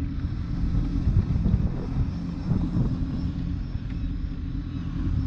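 Motorboat engine running steadily, a low engine note with wind and water noise over it.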